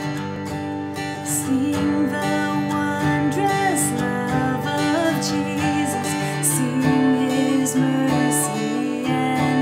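Acoustic guitar strumming a hymn accompaniment, with a wavering melody line over the chords.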